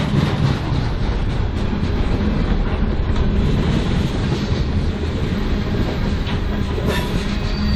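Freight train rolling past at close range, steel wheels clacking steadily over the rail joints under a continuous rumble, with a sharper click about seven seconds in.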